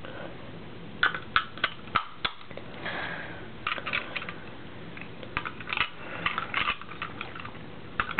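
Batteries being fitted into a wireless Mighty Mouse: a series of small sharp clicks and knocks from handling the mouse, its battery cover and the batteries, coming in short clusters.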